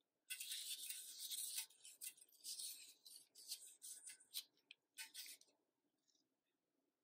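Handling noise: dry rubbing and scraping with a few sharp clicks from a gloved hand working around a roller bearing in a transmission case, stopping after about five seconds.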